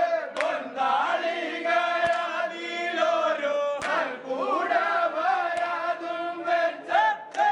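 A group of male voices chanting together in a sustained, melodic unison, with a few sharp knocks scattered through it.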